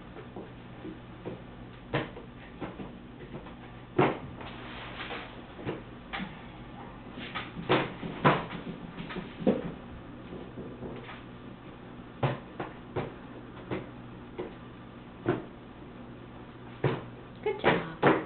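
Irregular knocks and clunks of a bowl and hands on a plastic high-chair tray during self-feeding, about a dozen in all, with a quick cluster near the end.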